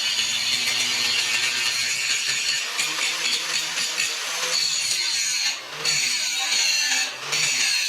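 Angle grinder grinding a chamfer onto the edge of a steel bucket bracket, cleaning up where the welds will go. The disc runs with a steady, harsh, high grinding that lets up twice for a moment in the second half as it comes off the metal.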